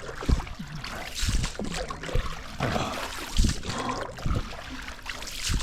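Water splashing and trickling, with irregular low thumps.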